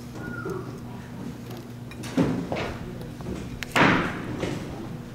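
Metal clunks and scrapes from a Volvo S60's front brake caliper and channel-lock pliers as the caliper piston is squeezed back into its bore against the old pad. There is a short falling squeak just after the start, a couple of knocks around two seconds in, and the heaviest thud a little before four seconds.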